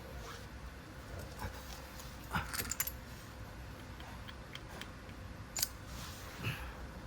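Metal hand tools clinking against metal: scattered light clicks and jingles, with a cluster of clinks about two and a half seconds in and a single sharp click a little past halfway.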